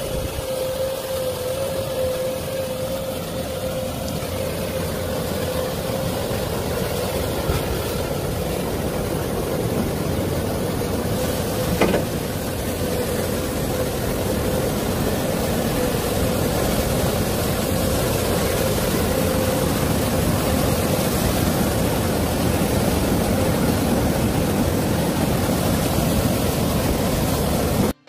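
Large Komatsu hydraulic excavator's diesel engine running steadily, with a steady whine over a broad rushing hiss; a single sharp click near the middle.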